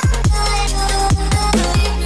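Electronic background music with a steady beat: a deep kick drum that falls in pitch on each hit, about three hits a second, under sustained synth notes.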